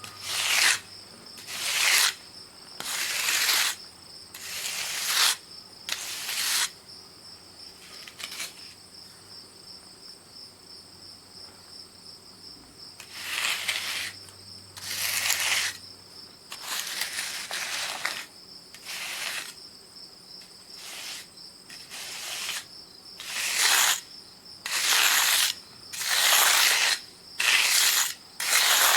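Repeated scraping strokes of a hand tool across concrete, each about half a second to a second long, in irregular runs with a pause of several seconds in the middle. A steady high insect trill runs underneath.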